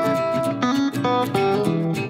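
Background music led by guitar, playing a quick run of plucked notes, some of them sliding in pitch.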